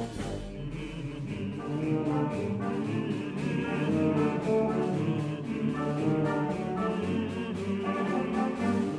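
Brass band music with a steady beat, sustained brass chords over regular percussion strokes.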